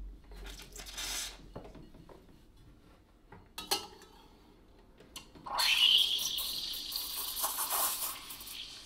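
A Rancilio Silvia Pro X steam wand, opened about five and a half seconds in, hissing steadily as it steams milk in a metal pitcher. Before that come a short hiss near the start and a clink of the pitcher.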